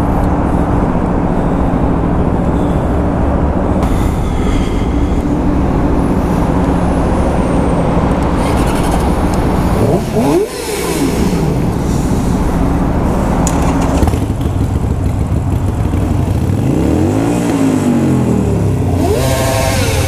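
Harley-Davidson V-twin motorcycle idling steadily close by, while other motorcycles' engines are revved up and back down, once about halfway through and again near the end.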